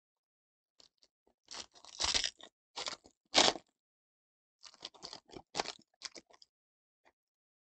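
Foil wrapper of a football trading-card pack being torn open and crumpled by hand: a run of irregular crinkling crackles, loudest about two and three and a half seconds in.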